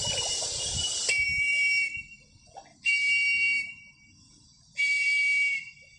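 A shrill, steady whistle-like signal sounding in three blasts about two seconds apart, the first one longer and stepping down in pitch partway through, with a low rumble under the first blast.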